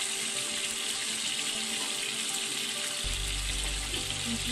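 Fish fillets sizzling in shallow oil on a flat iron tawa, a steady frying hiss. A low hum joins in about three seconds in.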